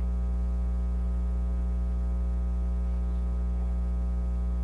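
Steady electrical mains hum with a stack of fainter overtones above it, unchanging throughout.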